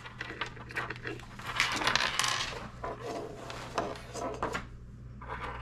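Hands handling small wiring parts and connectors: a run of small clicks, rattles and rustles, busiest about two seconds in.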